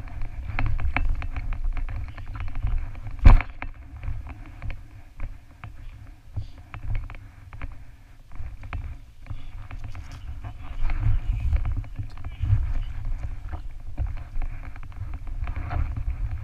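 Wind and handling rumble on a body-worn GoPro's microphone as a runner climbs over an obstacle wall, with scattered knocks and scuffs throughout and one loud thud about three seconds in.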